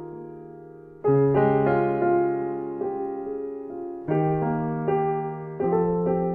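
Background piano music: slow chords struck and left to ring and fade before the next one.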